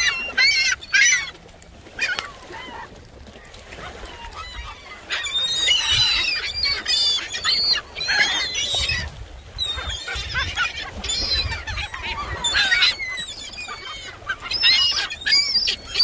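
A large flock of gulls calling over one another: many short, high, arched cries in overlapping clusters, thickest through the second half.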